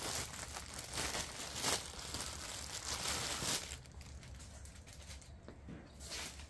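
Plastic bag crinkling as a new lawn-tractor air filter is unwrapped, for about three and a half seconds, then only a few soft handling clicks.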